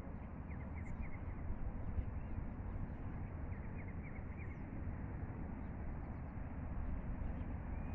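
Outdoor ambience: a steady low rumble of wind on the microphone, with birds chirping in short quick series, once near the start and again about halfway through.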